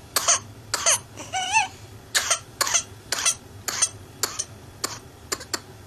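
A child's paroxysmal coughing fit from whooping cough: a rapid run of about a dozen short coughs, roughly two a second, growing fainter toward the end. A brief wavering high-pitched sound comes between them about a second and a half in.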